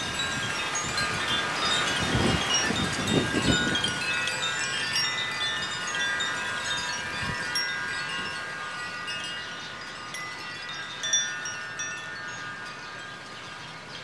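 Koshi wind chimes, hollow bamboo tubes with tuned metal rods inside, ringing as the wind swings them: many overlapping bright tones that thin out toward the end. Gusts of wind buffet the microphone a few seconds in.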